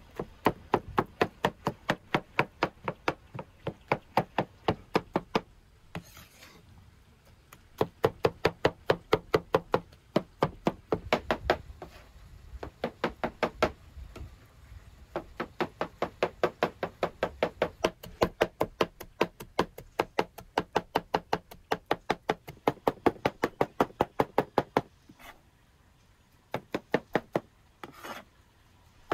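Heavy cleaver chopping roasted vegetables and herbs on a wooden cutting board: rapid, even knocks, about five a second, in runs broken by short pauses, with a few single strokes near the end.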